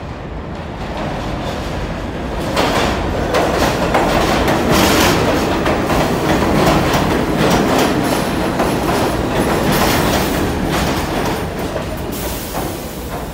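Budd R32 subway train running along the express track through the station, its wheels clattering over the rail joints. The rumble swells a couple of seconds in and eases slightly near the end.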